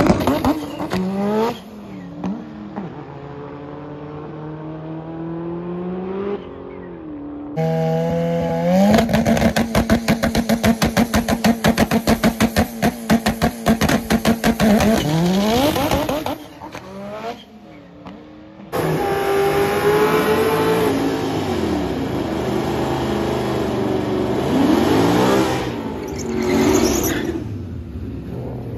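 Drag race cars on the strip: an engine revving up hard and then pulling away into the distance, climbing through its gears. Another engine is held at one steady rev with a fast, even stutter, typical of a launch limiter at the starting line, before it revs up to launch; later an engine climbs in pitch through several gear changes.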